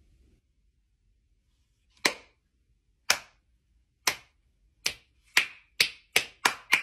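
One person clapping hands, about nine claps. They start about a second apart, a couple of seconds in, and speed up steadily into quicker applause: a slow clap building up.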